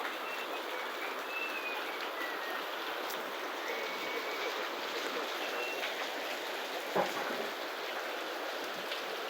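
Heavy rain falling steadily in a downpour, with a single knock about seven seconds in.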